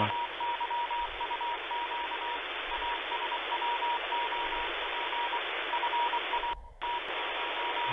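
Shortwave Morse code (CW) signal received on a web SDR: a single beeping tone keyed on and off over steady radio hiss, sending five-letter code groups that are probably from an automatic station. The audio drops out for a moment late on.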